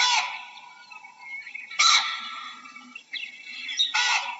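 Baboons calling: three short, loud calls about two seconds apart, with birds chirping in the background.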